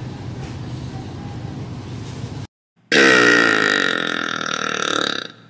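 Steady background hum for about two and a half seconds, then a sudden cut and a woman's long, loud burp lasting a little over two seconds.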